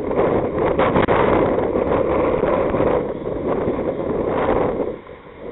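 Wind buffeting an outdoor microphone: a loud, uneven rumbling hiss that swells and eases, dropping away about five seconds in.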